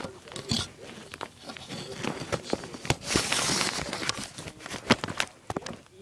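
Handling noise: irregular clicks, knocks and rustling as a handheld camera is moved about, with a brief rustle about three seconds in. No vacuum motor is running.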